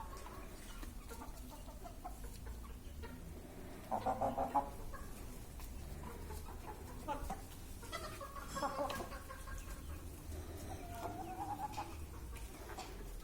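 Broiler chickens clucking and calling, with a loud short run of quick calls about four seconds in and scattered calls after it.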